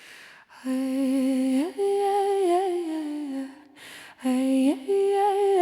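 A voice humming a slow wordless melody in two matching phrases. Each holds a low note, slides up, then steps back down.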